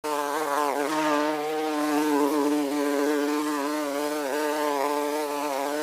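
A bee buzzing: a steady, slightly wavering drone.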